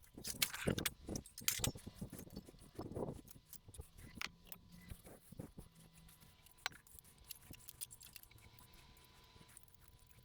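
Irregular light metallic clicks and clinks of hand tools and engine parts being handled, busier for the first few seconds and then sparser and fainter.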